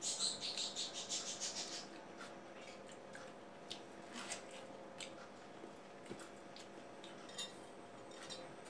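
People eating watermelon slices: a quick run of wet biting and slurping in the first two seconds, then scattered small mouth clicks and smacks, over a faint steady hum.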